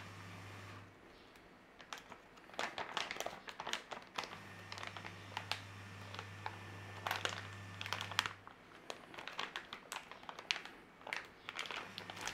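Clear resealable plastic bag crinkling and its zip seal clicking as it is pressed shut by hand: an irregular run of small crackles and clicks.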